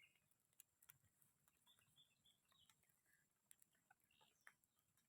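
Near silence, with a few faint, short high chirps and scattered faint ticks.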